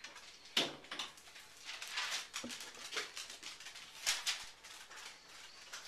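Magazine pages being handled and turned: a string of short paper rustles and flicks, the loudest about half a second in and again around four seconds in.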